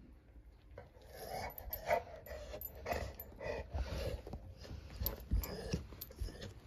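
A pit bull-type dog whining in short, repeated whimpers that start about a second in, begging for more treats.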